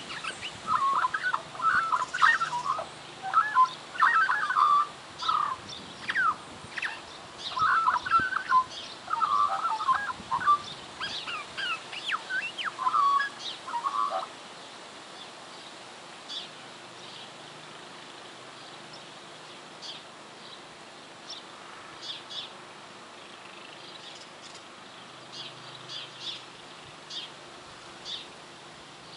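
Magpie vocalising in a rapid run of short, gliding notes for about the first fourteen seconds, its mimicry of a horse's whinny. After that only faint, scattered short chirps remain.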